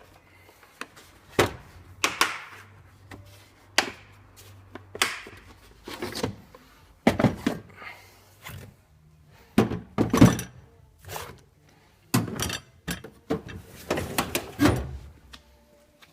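Metal drawers of a Snap-on tool box being slid open and shut, a run of thuds and knocks as they close and the tools inside shift.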